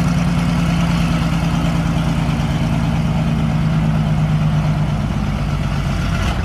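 Chrysler A57 Multibank 30-cylinder engine, five flathead six-cylinder banks on one crankcase, running steadily at low speed with an even, deep hum.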